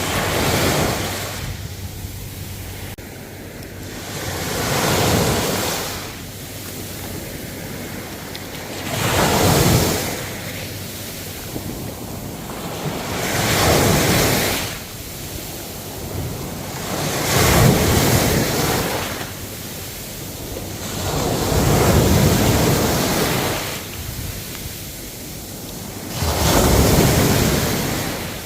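Ocean waves breaking, a surge of surf about every four to five seconds over a steady wash of water.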